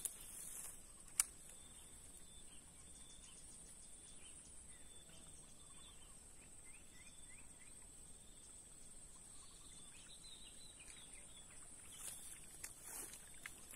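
Faint outdoor ambience: a steady high-pitched insect drone with scattered short bird chirps. There is a single sharp click about a second in.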